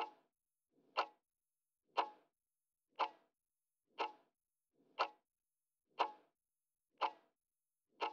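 Countdown-timer clock tick sound effect: one short tick every second, evenly spaced.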